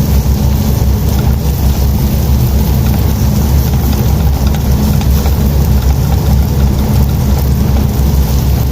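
Chicken liver frying in hot oil with sautéed onion, garlic and ginger, a steady sizzle over a constant low rumble.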